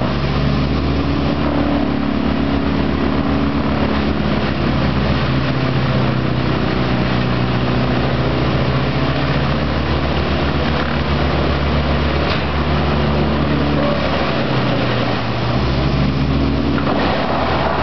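Wood chipper running at full speed, its engine a steady drone, as branches are fed in and chipped into sawdust. The sound turns harsher and brighter near the end.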